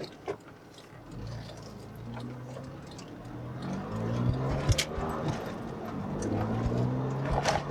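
Porsche 911 (996) flat-six engine pulling under acceleration, heard from inside the car; its note rises, drops about halfway through and rises again. A couple of sharp clicks sound near the middle and near the end.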